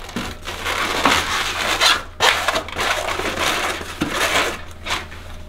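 Latex 260 modelling balloons rubbing and squeaking against each other and the hands as they are twisted and bent into a loop. The noise runs in a string of scrunching bursts with a few short breaks between twists.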